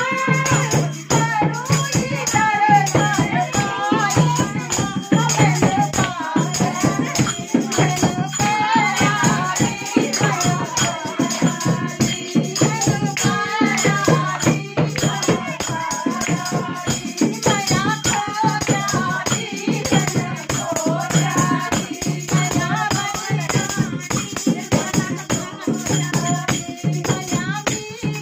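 Women singing a Hindi devotional bhajan together in kirtan style, with fast hand-clapping and jingling percussion keeping a steady beat over a low drone.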